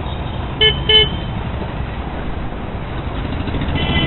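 Two short honks of a vehicle horn, about a third of a second apart, over a steady rumble of road and traffic noise. A high-pitched whine comes in near the end.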